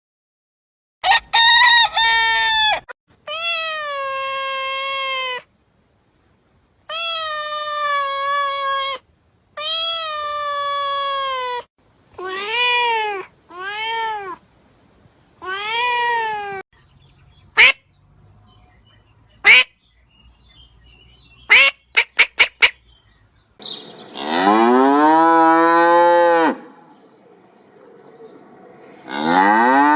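A run of animal calls, one after another: seven pitched calls, each a second or two long and arching or falling in pitch. Then come a few very short, sharp high calls, the last four in quick succession. Near the end, cattle moo twice in long, low, arching calls.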